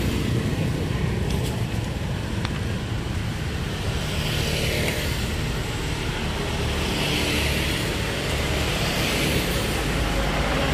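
Road traffic on the street: a steady rumble, with a vehicle swelling past about four seconds in and more passing through the second half.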